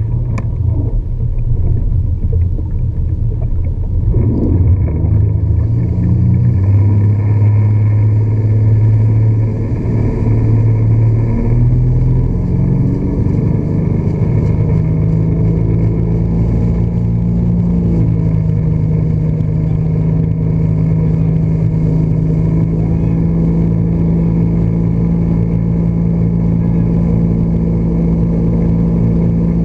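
Motorboat engine pulling a barefoot water-skier up off the water: its pitch climbs for about the first twelve seconds as the boat gets up to speed, then it runs steadily at towing speed.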